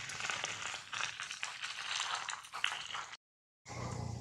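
Dense crackling and rattling noise full of small clicks, cut off abruptly about three seconds in. After a brief silence a low hum takes over near the end.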